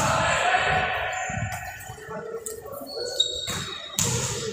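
Indoor basketball game sounds: players' voices, a basketball thudding on the court and a brief high squeak about three seconds in.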